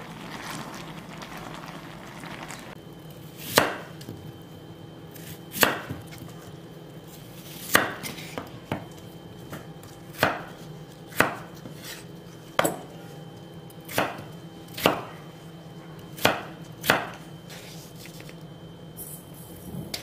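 Chef's knife cutting peeled raw potatoes on a wooden cutting board: about a dozen single sharp cuts, one every one to two seconds.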